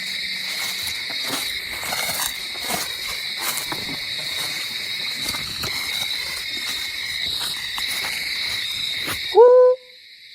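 Night insect chorus of crickets or katydids: a steady high trilling with scattered crackles and rustles. Near the end comes a single short whoop that rises then holds, the loudest sound, after which the chorus cuts off abruptly.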